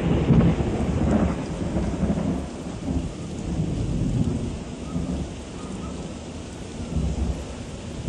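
Strong storm wind and rain, with the gusts rumbling heavily on the microphone. The rumble swells and eases several times, strongest in the first second or so and again about four and seven seconds in.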